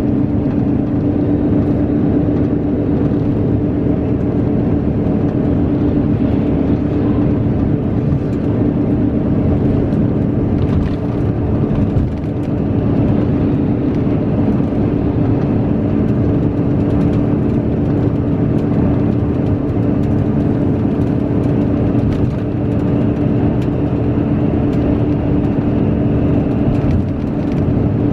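Steady drone of an expressway bus heard from inside the cabin at cruising speed: a constant low hum with road and tyre noise, dipping briefly about twelve seconds in.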